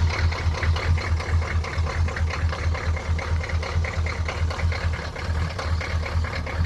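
GM 6.2-litre V8 diesel idling roughly, with a fast, slightly uneven pulsing beat and diesel clatter.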